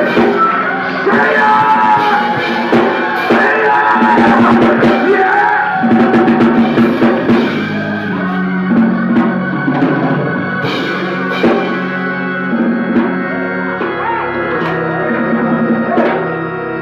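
Live church worship music: a band with drum kit and sustained keyboard chords, with singing.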